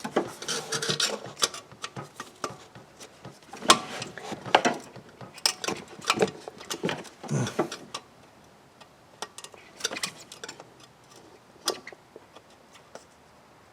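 Irregular plastic and metal clicks, knocks and rustling of hands working at wiring-harness connectors and brackets in an engine bay, busiest in the first half and sparser later.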